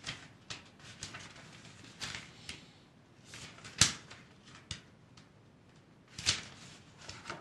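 Quiet handling of a book's paper pages: soft rustles and small clicks, with one sharp click a little under four seconds in and a louder rustle a little after six seconds.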